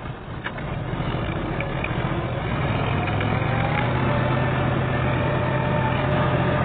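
Combine harvester engine running, growing louder over the first few seconds, then holding a steady pitch.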